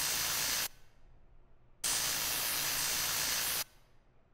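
Loud hissing noise over a low rumble, in bursts that start and stop abruptly. One cuts off less than a second in; another runs from about two seconds in to near the end.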